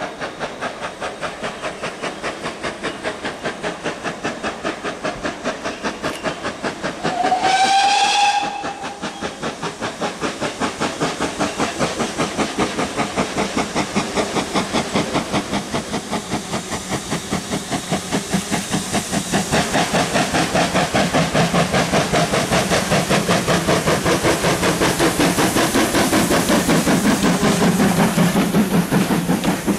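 Steam locomotive, the 1500 class pannier tank No.1501, working under power with rapid, even exhaust beats that grow louder as it approaches. It gives one short blast on its whistle about seven seconds in.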